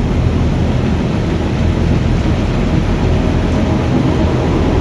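Arnson welding positioner's variable-speed table drive running steadily as the table rotates, a constant low machine hum from the motor and gearing.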